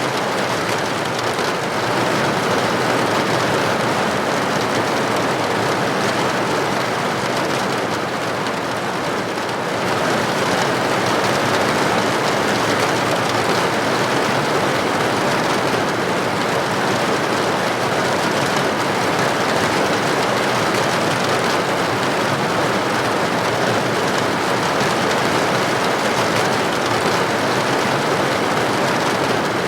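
Steady rain heard from indoors: a constant even hiss that eases slightly about a third of the way through and then comes back.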